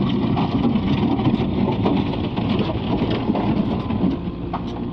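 Bobcat skid steer loader's engine running under a dense, gritty crackle that eases about four seconds in.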